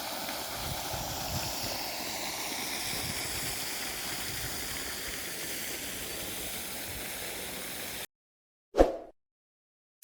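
Steady rushing of running water. It cuts off suddenly about eight seconds in, and a brief short sound follows near the end.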